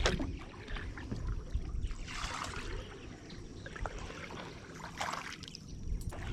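Water lapping and sloshing against a boat's hull over a low rumble, with two short splashy swells about two and five seconds in.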